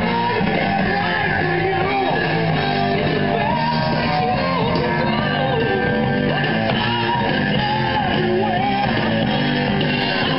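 Rock song with guitar and a singing voice, playing at a steady level.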